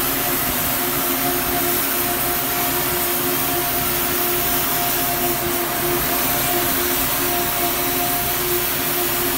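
Gas heating torch burning steadily on a red-hot steel pipe, a continuous hiss, with a steady hum from running machinery underneath.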